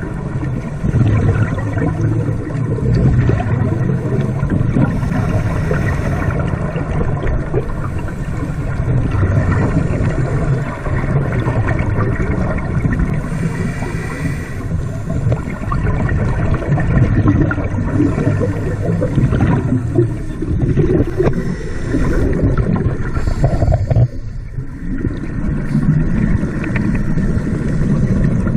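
Muffled underwater noise on a scuba dive: a steady low rumble with gurgling from divers' exhaled regulator bubbles.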